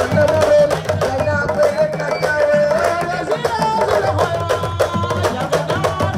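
Sabar drums played in a fast, dense rhythm, with a wavering melody line carried over the drumming.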